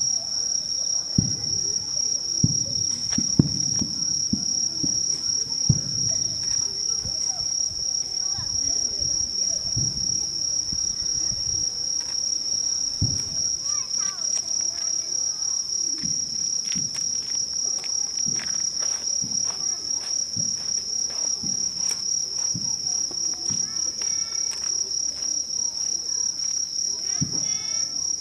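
A steady high-pitched trilling chorus of crickets that never lets up, with dull low thuds of distant fireworks bursting now and then, several in the first few seconds.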